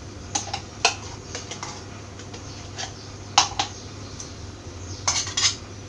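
A steel spoon clinking and scraping against the bottom of an aluminium pressure cooker as it spreads melted ghee: a handful of sharp separate clicks, then a quick cluster of them near the end.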